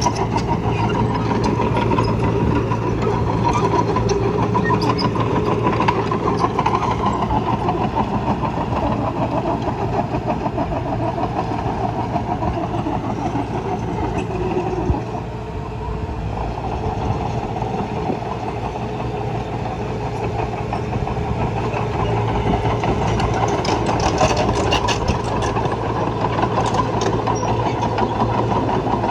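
Heavy diesel earthmoving machinery running steadily under work, its engine dipping briefly about fifteen seconds in.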